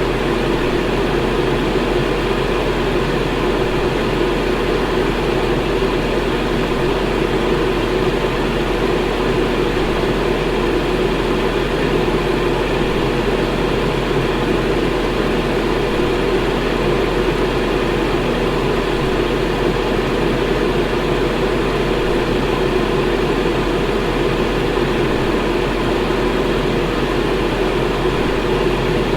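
Electric fan running steadily: an even, unchanging whoosh of moving air, fullest in the lower-middle range, with a low steady hum beneath.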